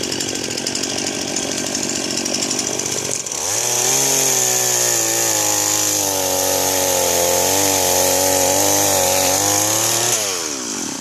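Chainsaw running, revved up sharply a little over three seconds in and held at high speed with a wavering pitch, then throttled back near the end.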